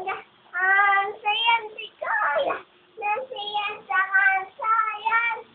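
Young child singing unaccompanied in short phrases of held notes, stopping near the end.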